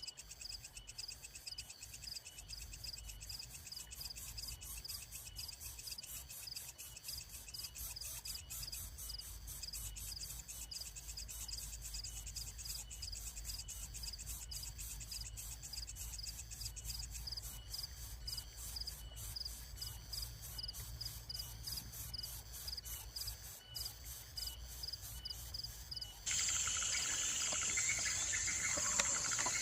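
Insects calling in a steady, rapidly pulsing chorus of high chirps. Near the end it switches suddenly to a louder, denser buzzing insect chorus.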